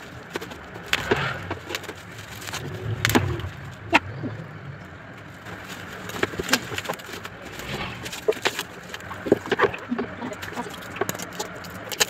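White plastic wrapping crinkling and rustling as it is pulled off a red plastic chair, with scattered sharp clicks and light knocks of the plastic.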